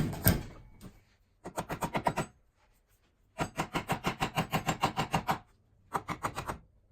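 A hand tool worked back and forth in quick rubbing strokes, about ten a second, in three short runs with pauses between them. The longest run, about two seconds, falls in the middle.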